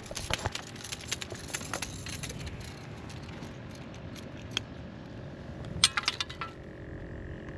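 Light clinks and rattles of fishing gear being handled, with a quick run of sharp clicks about six seconds in.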